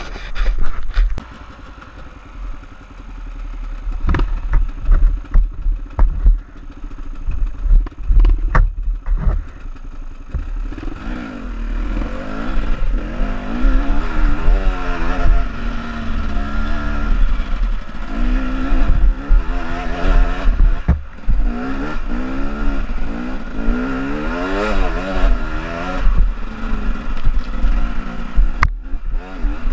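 KTM EXC two-stroke enduro motorcycle engine ridden along a rough trail, pitch rising and falling over and over as the throttle is opened and closed, with knocks and clatter from the bike going over bumps. The first few seconds are lower and quieter before the revving picks up about ten seconds in.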